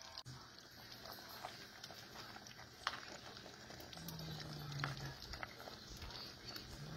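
Faint kitchen handling sounds as cooked shrimp are dropped by hand into a skillet of alfredo sauce: a few small clicks and taps, the sharpest about three seconds in. A short low hum of a voice comes about four seconds in.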